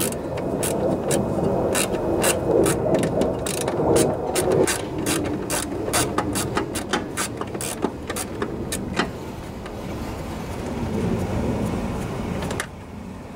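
Socket ratchet clicking as it backs out an 8 mm engine-cover bolt: a run of quick clicks, a few a second, that thins out after about nine seconds.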